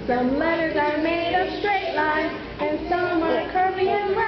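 A child singing a melody, with the pitch sliding between notes.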